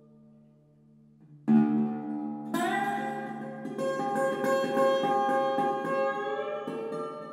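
Instrumental music: a quiet held chord fades away, then a new chord strikes about a second and a half in, and about a second later fuller, louder sustained chords join and ring on.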